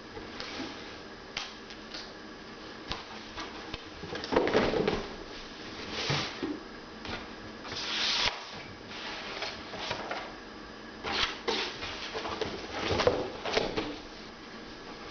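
Household items being handled and set into a cardboard box: irregular knocks, scrapes and rustles of cardboard, with louder bunches of handling about four seconds in, around eight seconds, and again from about eleven to thirteen seconds.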